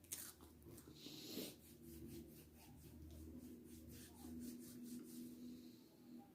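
Faint chewing of taco pizza: soft crunches and mouth clicks in an uneven string, the loudest just after the start and about a second and a half in, over a low steady hum.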